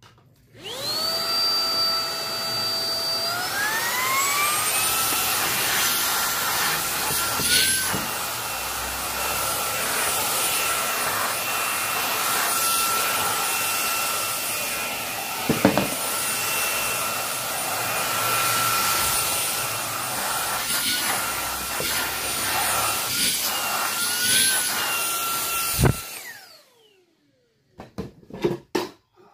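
Cordless handheld vacuum cleaner switched on to clean up acrylic cutting debris: its motor whine rises in two steps to a steady high pitch, with a few brief jumps in pitch. Near the end it is switched off and winds down.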